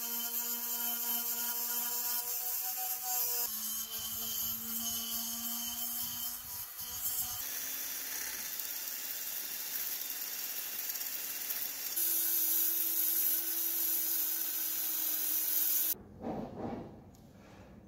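Small electric power tool driving a wire brush against the old padlock's metal body to strip rust. Its steady whine changes pitch several times, and it stops shortly before the end, followed by a few faint clinks.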